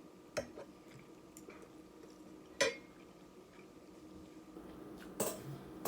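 Eating utensils clinking against a dish: three separate short knocks, the loudest about two and a half seconds in.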